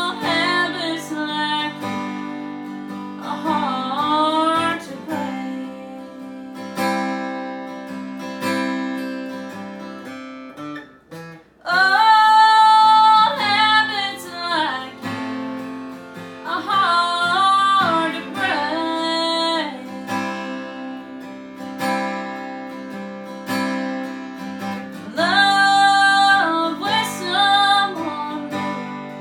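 A woman singing a slow country song while strumming an acoustic guitar. The music drops away briefly about eleven seconds in, and then the voice comes back loud.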